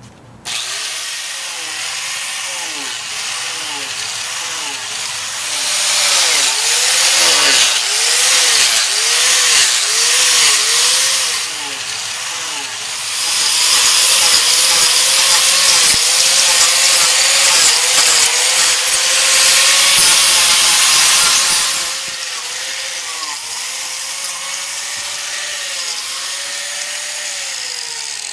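A 4.5-inch angle grinder fitted with a 14-tooth Lancelot chain-saw carving disc starts up about half a second in and cuts into a wooden log. Its motor pitch dips and recovers over and over as the disc is swept through the wood, and the cutting gets louder and rougher in two long stretches of heavier, chip-throwing cuts.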